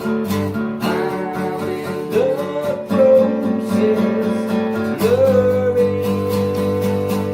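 Background music: a song with strummed acoustic guitar and a steady beat, in an instrumental passage.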